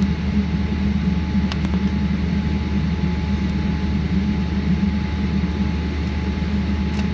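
Steady low hum inside an airliner cabin on the ground, from the aircraft's running systems and air conditioning, with a faint steady whine. A few light clicks sound about a second and a half in and again near the end.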